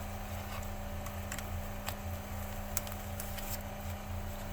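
A few faint clicks and taps of plastic parts being handled as the dust bag's tabs are fitted into the vacuum canister, over a steady low hum.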